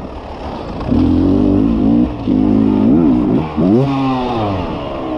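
Beta enduro motorcycle engine being revved hard and backed off as it is ridden, its pitch rising and falling repeatedly. The highest, steepest rise comes about four seconds in, then the pitch slides down.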